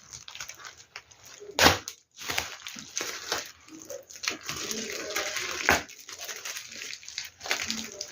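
Plastic packaging crinkling and rustling as items are handled and unwrapped, with two sharper crackles, about a second and a half in and again near six seconds.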